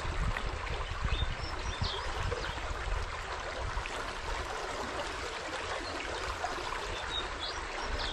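River water running over rocks in a steady stream, with a few faint high chirps.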